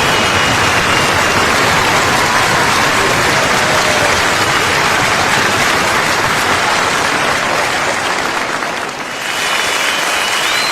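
Crowd applause, a dense steady noise, with faint whistles held on one pitch above it. The noise dips briefly about nine seconds in, then comes back with a higher whistle over it.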